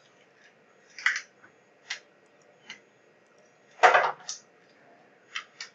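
Computer mouse clicking: a handful of separate, sharp clicks as copies are placed in a CAD program. The loudest is a pair of clicks about four seconds in.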